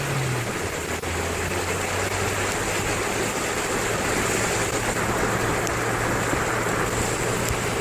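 Steady rushing of floodwater, with a low steady hum underneath.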